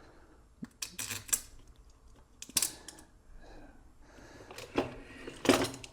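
Scattered clicks and knocks of hard parts and tools being handled and set down, a few at a time, with no drill running.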